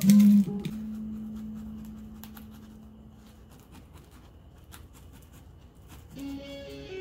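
Knife cutting into a red onion on a plastic cutting board: faint scattered clicks and scratches. A held guitar note from background music fades away at the start, and the guitar music comes back in about six seconds in.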